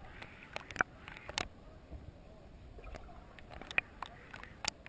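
Underwater sound from a camera held below the surface while snorkeling: irregular sharp clicks and pops over a low, muffled rumble.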